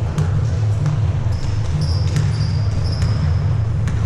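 Indoor youth ball game in a gym, most likely basketball: a ball bouncing on the floor in scattered knocks, with a few short high squeaks in the middle and a steady low hum of the hall underneath.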